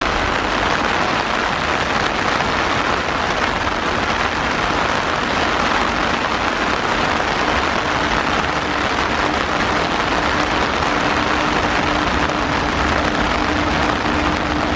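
Heavy rain pouring down as a steady hiss. About halfway through, a steady hum from an approaching Indian Railways WAG-7 electric locomotive rises under it and grows stronger.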